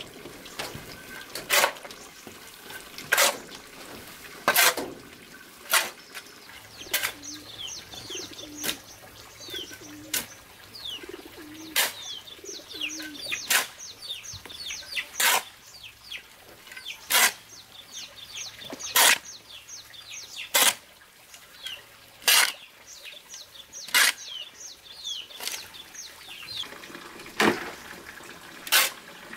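A metal shovel scraping over a concrete slab as it scoops into a heap of soil, one short stroke about every one and a half to two seconds. Small birds chirp quickly in the background.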